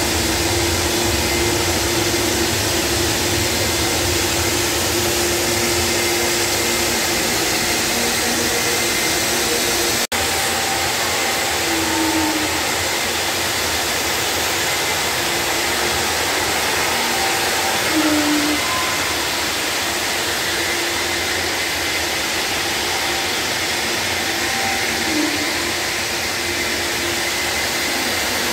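A floor grinding machine fitted with sanding pads runs steadily, sanding down bubbles in the first coat of an epoxy floor. It gives a loud, even hiss with a faint hum. There is a brief break about ten seconds in.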